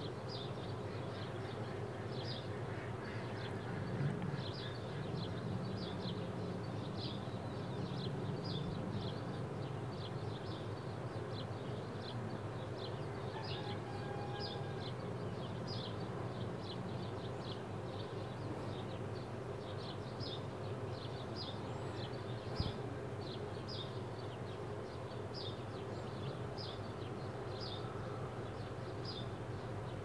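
Short high-pitched chirps repeating at an even pace, about one and a half a second, over a steady low hum, with a single small knock near the end.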